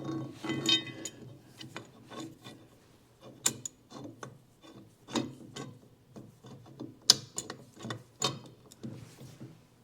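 Steel parts of an antique car's steering gear box clicking and clinking irregularly as a gear is worked down and screwed onto the steering shaft by hand. A few sharper metal clanks stand out, about three and a half, seven and eight seconds in.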